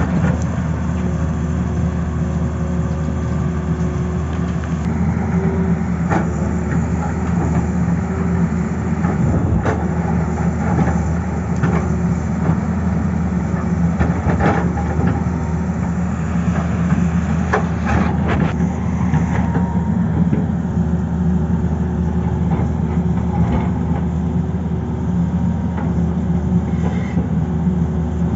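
Tata Hitachi crawler excavator's diesel engine running steadily under working load as it digs, with a thin steady hum over it. Scattered sharp knocks and clicks come through the middle of the stretch.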